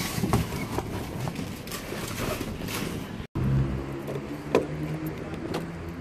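A cardboard parcel scraping and knocking as it is pulled out of a metal parcel locker. After a cut about three seconds in, a vehicle engine hums steadily nearby, with sharp clicks over it.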